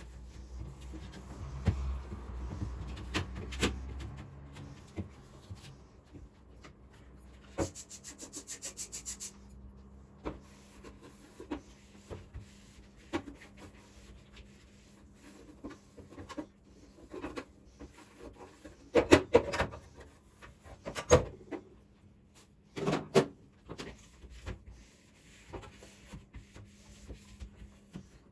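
Containers and other items being handled and set down while a refrigerator is cleaned and organised. Scattered knocks and clicks come over rubbing and scraping, with a quick run of rapid ticks about eight seconds in and the loudest clatters about two-thirds of the way through.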